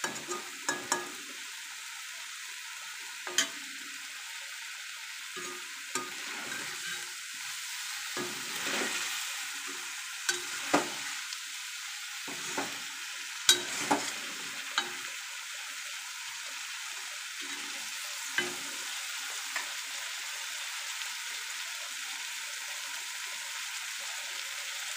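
Paneer cubes sizzling steadily as they shallow-fry in hot oil in a kadai, with a spatula clicking and scraping against the pan now and then, mostly in the first half.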